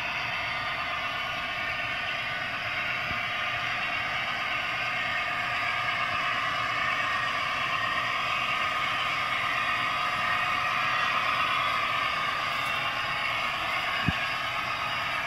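Model train sound decoder (ESU) in a ROCO Northlander/TEE diesel trainset playing a steady running diesel-railcar sound through the model's small speaker. It sounds tinny, with no deep bass, and mixes with the model's wheels running on the track. A single sharp click comes near the end.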